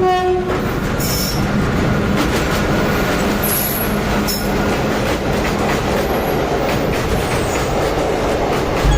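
Train running on the rails: a steady rumble of wagons with a few brief, high-pitched wheel squeals.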